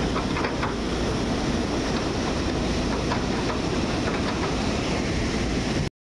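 Ocean surf breaking on a beach, with wind buffeting the microphone: a steady rushing noise. The sound cuts out for a moment near the end.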